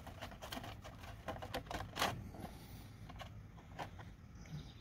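Faint light metallic clicks and ticks as the drain plug of a riding mower's rear transaxle is turned out by hand and handled, a quick run of them in the first two seconds, then a few scattered ones.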